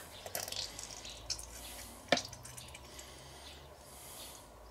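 Barbecue sauce pouring from an upturned bottle into a cast-iron Dutch oven: faint wet dripping and squirting, with one sharp knock about two seconds in.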